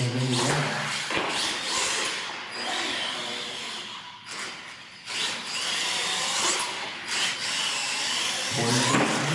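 Motor and drivetrain whine of a radio-controlled monster truck, rising and falling in pitch as the throttle is worked, with a few sharp knocks.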